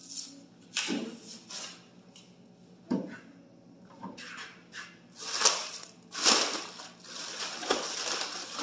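Plastic shrink wrap and bags crinkling and rustling in irregular bursts as hands pull them off a part, with a couple of dull knocks in the first few seconds.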